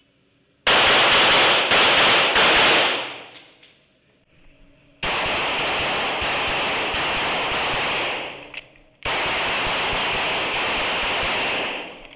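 Handgun fired in three rapid strings of shots, each string lasting two to three seconds with brief pauses between, the shots following so closely that they run into one another.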